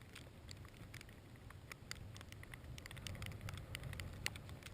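Low wind rumble on the microphone with many scattered light ticks and clicks, thickest about halfway through and toward the end.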